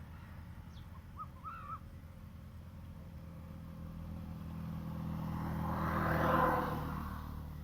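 Outdoor ambience with a low steady hum and a few short bird chirps about a second in, then a rushing sound that swells and fades, loudest about six seconds in.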